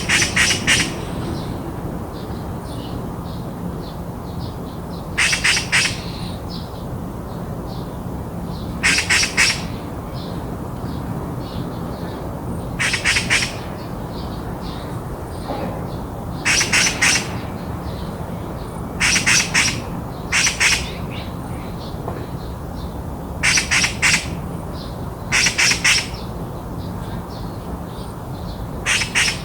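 Magpie chattering: harsh, rattling calls of a few quick notes each, repeated about every two to four seconds. Fainter small bird chirps come in between.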